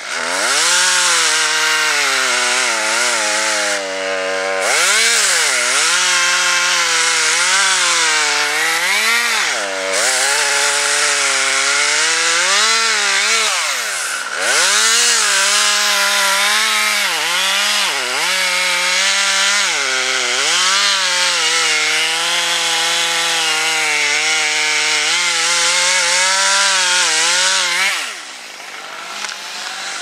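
Husqvarna T540 XP top-handle two-stroke chainsaw running at high revs as it cuts through a maple trunk, its engine speed dipping and picking back up several times as the chain loads in the wood. It drops off sharply near the end.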